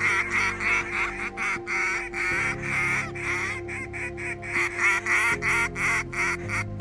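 Hand-held waterfowl call blown in a fast, unbroken run of short, high honking notes, several a second.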